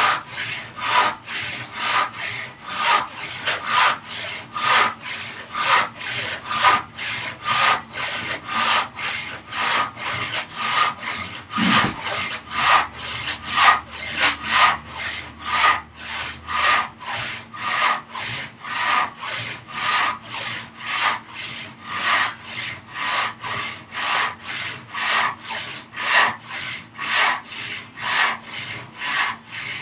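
Large handsaw sawing through a wooden board by hand, in steady, even strokes at about two a second.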